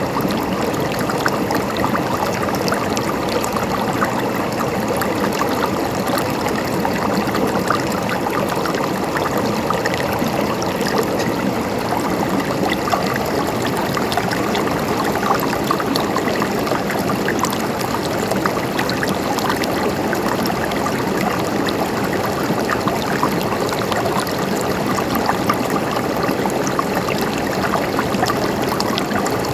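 Mountain stream water flowing and gurgling over rocks, a steady babble with no change in level.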